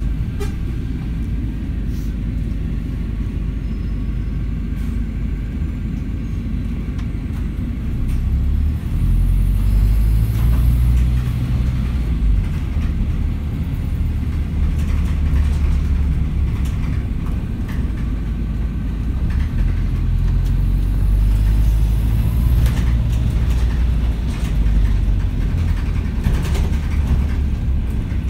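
Volvo B5LH hybrid double-decker bus heard from inside on the upper deck while under way: a low drivetrain and road rumble that grows heavier and steadier about eight seconds in and again midway, as the bus pulls away. Scattered light rattles come from the bus interior.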